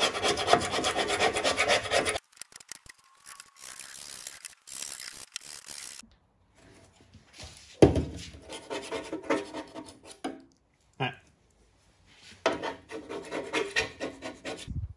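Razor-blade scraper scraping old glued felt off the steel bottom of a tool box drawer: rapid, rasping strokes of blade on sheet metal, in several bouts broken by short pauses.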